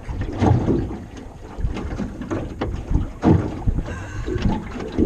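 Wind buffeting the microphone, with irregular knocks and bumps on the aluminium boat's hull.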